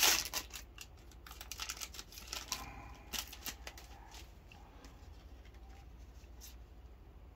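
A foil trading-card booster pack crinkling and being torn open, then the cards inside being slid out and handled. The crackling is densest in the first three seconds or so, then thins to occasional soft clicks.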